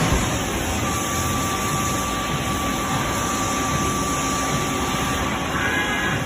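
Doosan Puma 240C CNC lathe running: a steady whirring hum with a thin high whine from about a second in until shortly before the end.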